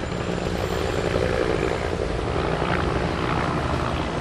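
Steady low engine rumble mixed with outdoor street noise.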